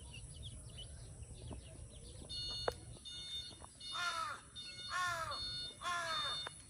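A crow cawing three times, about a second apart, each call falling in pitch.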